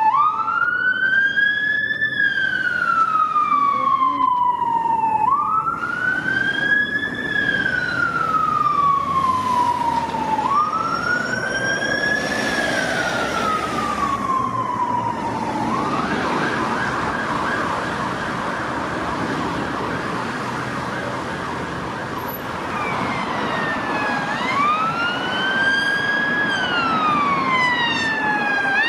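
UK police car electronic sirens on wail, each tone rising quickly then falling slowly about every five seconds. About two-thirds of the way in, the siren switches to a fast yelp for several seconds, then returns to wail near the end. Traffic noise runs underneath.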